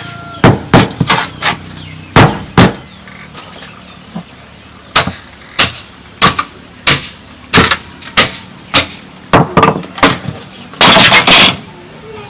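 Repeated sharp blows of a hand tool on bamboo, one strike every half second or so, with a pause of a couple of seconds in the middle. A short, denser clatter comes near the end.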